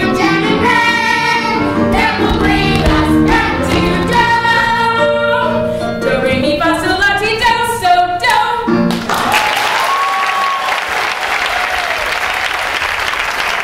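Children's chorus singing with backing music. The song ends about nine seconds in and audience applause follows.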